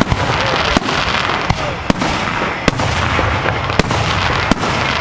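Fireworks display: a series of sharp bangs, about seven in five seconds at uneven intervals, over a continuous dense wash of noise.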